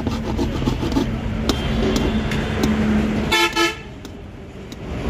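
A vehicle horn honks once, briefly, a little over three seconds in, over steady low street-traffic rumble with scattered light clicks.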